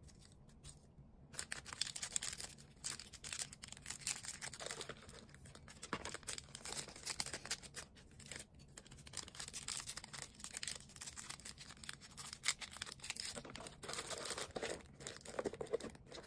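Hands crinkling and tearing plastic packaging: a dense, uneven run of crackles and small clicks that starts about a second in.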